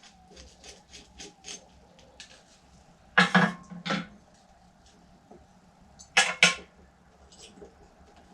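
Hand tools and metal parts being handled while compressor wiring is taken apart: a few light clicks, then two louder clattering knocks about three and six seconds in.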